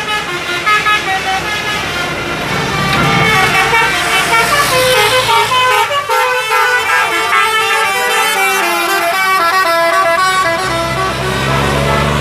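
Bus 'telolet basuri' horn playing a tune of quick stepped notes, several pitched tones sounding together. A low engine hum comes in under it near the end.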